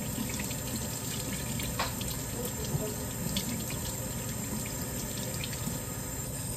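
Kitchen sink faucet running steadily while hands are washed under it, with a few light knocks.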